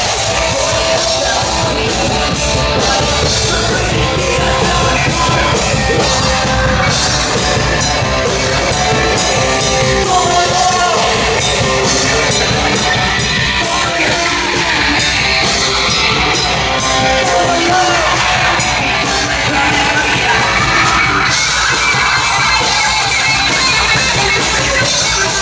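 Live punk/metal band playing loud: electric guitars and drums with shouted vocals over them.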